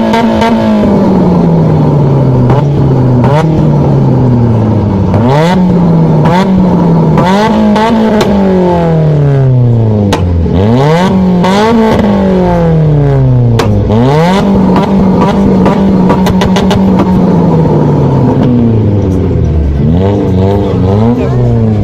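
A high-performance car engine revved hard over and over: each rev jumps up quickly and then falls away over one to three seconds. Sharp cracks and pops are heard between the revs.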